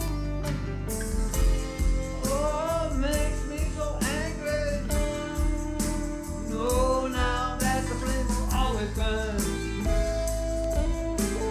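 Stratocaster-style electric guitar playing a lead line of bent, wavering notes over a backing track with drums and bass.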